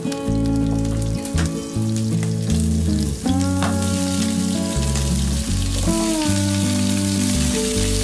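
Potato chunks sizzling as they are dropped one by one into a hot frying pan, with a few soft knocks as pieces land and the frying hiss building toward the end. Background music with held notes and a bass line plays throughout.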